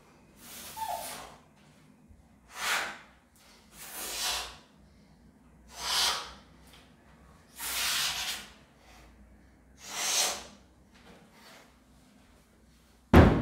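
A man breathing out hard and noisily with each kettlebell swing, six sharp exhalations about every one and a half to two seconds. A sharp, loud thump near the end.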